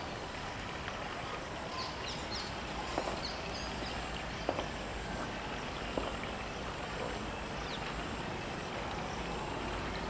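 Outdoor ambience: a steady background hiss with a few brief high bird chirps about two seconds in, and several faint clicks.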